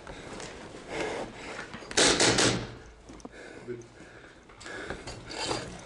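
Rubbing and scraping of gear and clothing against the microphone during movement, with a louder scraping burst about two seconds in.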